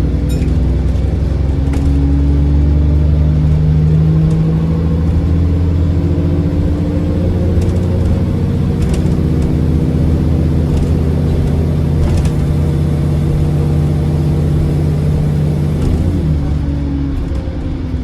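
A bus's diesel engine pulls hard under acceleration, heard from on board. Its drone climbs slightly over the first few seconds and holds steady, then the pitch drops and the sound eases off a couple of seconds before the end as the driver lifts off or changes gear. A few faint knocks and rattles come through along the way.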